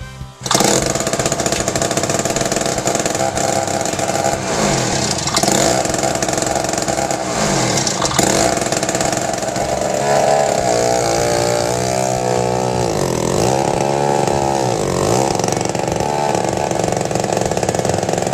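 MTD snowblower's small gasoline engine running while clearing deep snow, cutting in suddenly about half a second in. Its pitch dips and recovers several times.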